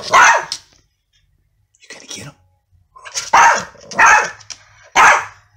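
Small affenpinscher–Yorkshire terrier mix dog barking: a bark at the start, a softer one about two seconds in, then three louder barks in quick succession near the end. Alert barking at a stranger, the gardener, outside the house.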